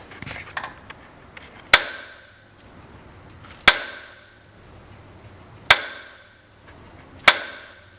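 Four sharp metal-on-metal blows, about two seconds apart, each ringing briefly: a ratchet used as a hammer, knocking a wheel stud out of the hub.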